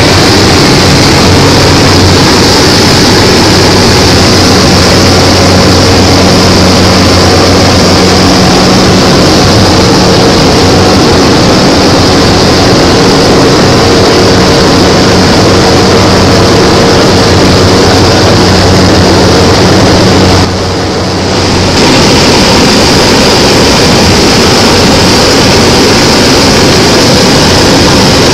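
Cabin noise of a single-engine propeller aircraft in flight, heard from the cockpit: a steady engine and propeller drone with a low hum and a bright hiss above it. About twenty seconds in it suddenly drops a little for just over a second, then comes back.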